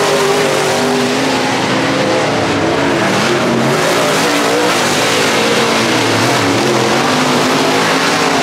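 Several dirt late model race cars running on the track, their engines rising and falling in pitch over one another as they go around.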